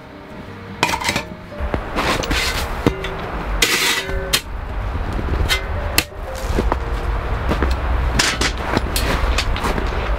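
Irregular metal clanks and sharp knocks of camping gear being handled and set up.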